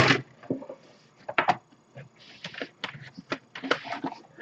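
Folded cardboard game board being handled and pressed flat on the floor: a string of short taps and brief rustles, with pauses between them.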